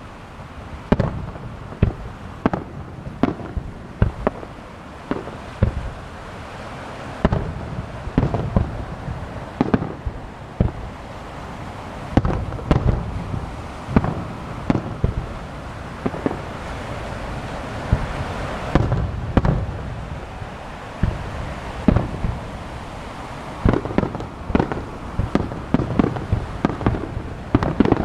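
A starmine fireworks barrage: a rapid, irregular series of aerial shell bursts, several booms a second at times, with crackling and hissing from the burning stars filling in through the middle.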